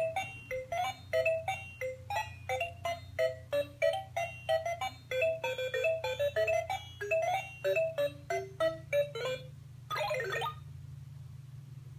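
LeapFrog Chat & Count toy phone playing a quick electronic tune of short beeping notes through its small speaker. The tune stops with a brief flourish just before ten seconds in.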